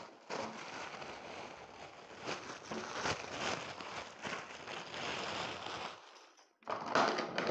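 Clear plastic packaging bag crinkling and rustling as plastic chopper blade inserts are taken out of it, with a short pause about six seconds in before the rustling resumes.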